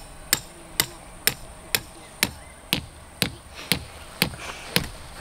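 Steady hammering with a rock: ten even knocks, about two a second, each with a short dull ring that drops in pitch.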